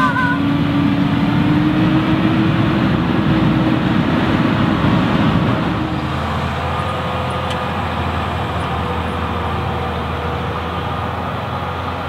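Fendt 1050 Vario and Fendt 939 Vario tractors working in tandem under heavy load on a deep plough, a loud steady diesel engine drone. About halfway through it switches abruptly to a quieter, more distant drone.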